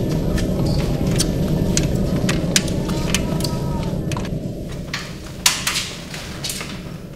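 Hospital gurney being pushed along a hard floor: its caster wheels rumble steadily while the frame clicks and rattles, fading toward the end.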